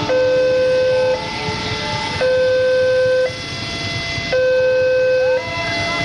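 Railway level-crossing warning alarm sounding, an electronic two-tone that alternates steadily between a lower and a higher pitch about once a second, signalling that a train is approaching.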